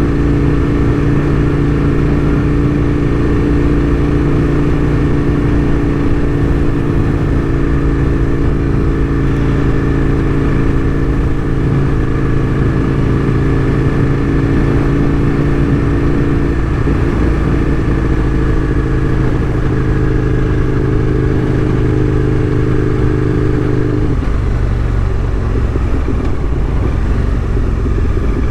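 Aprilia RSV1000's V-twin engine running steadily under way at an even speed, its note changing and settling lower near the end.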